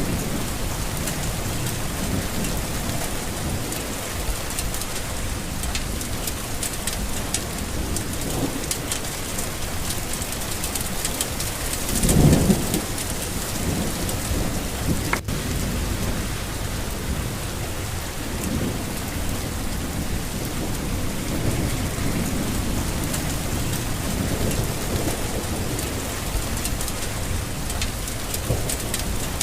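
Steady rain falling with low rolls of thunder; the loudest rumble comes about twelve seconds in. There is a brief click a little past the middle.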